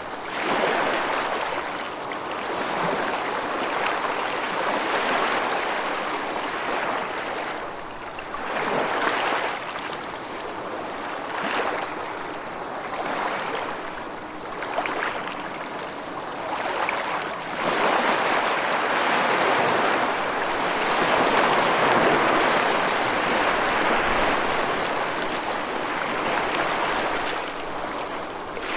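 Rushing, splashing water in surges that swell and ebb every few seconds, with the strongest stretch a little past the middle.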